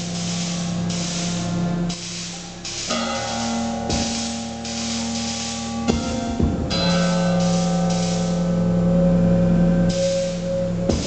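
Live electronic music: sustained synthesized tones that shift in pitch every couple of seconds, under pulsing washes of noise, with a few sharp percussive hits.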